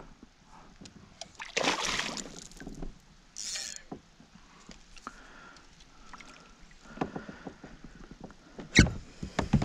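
A hooked pike splashing as it is played and drawn alongside a kayak, with small knocks and clicks from the kayak and tackle. A longer splash about two seconds in and two sharp hits near the end are the loudest sounds.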